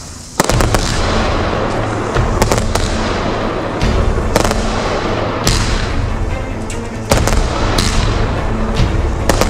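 Ground firework fountain spraying sparks, starting suddenly about half a second in, with dense hissing and many sharp crackles and pops. Backing music with a deep beat runs underneath.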